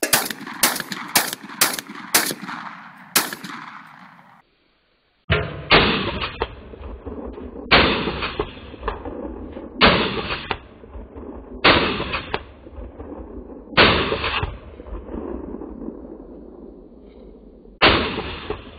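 Shotgun firing slugs: a quick string of six shots about half a second apart, then, after a brief break, six more shots about two seconds apart, each trailing off in a rolling echo.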